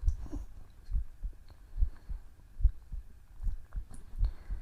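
A human heartbeat heard up close: steady, low double thumps (lub-dub), about 70 beats a minute.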